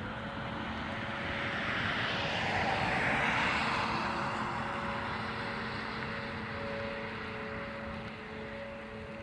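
A fixed-wing aircraft passing overhead, its engine noise swelling to a peak about three seconds in and then slowly fading.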